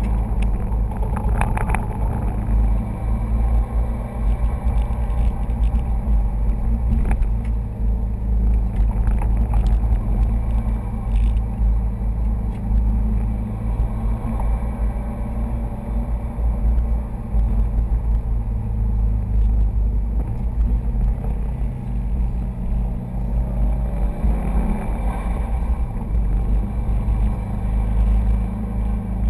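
Cabin noise of a 2011 Subaru STI cruising at about 40 mph: the turbocharged flat-four's drone and tyre rumble heard through closed windows, with the air conditioning running. A few brief clicks or rattles come near the start.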